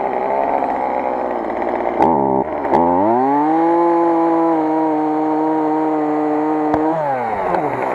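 Two-stroke gas chainsaw idling, then throttled up about two and a half seconds in and held at high, steady speed for about four seconds while taking a small further cut into the tree trunk. It then drops back to idle near the end.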